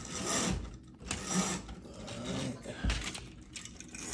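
Window roller shade being raised by hand, its mechanism rattling and clicking irregularly, with a couple of dull bumps.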